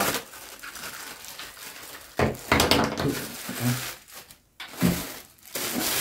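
Clear plastic bags crinkling and rustling as they are pulled off vacuum cleaner parts. The handling is quiet at first, then comes in several sharper bursts from about two seconds in.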